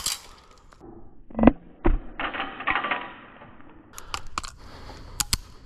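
Two pistol-style airsoft grenade launchers fired with green-gas 40mm shells: a sharp pop about a second and a half in, a second weaker pop just after, then a rattling hiss of the gas and BB spray for about a second. A few sharp clicks come near the end.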